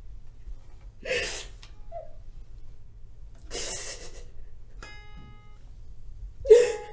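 A woman crying: three gasping sobs, the last near the end the loudest. Between the second and third, a balalaika string is plucked once and rings briefly.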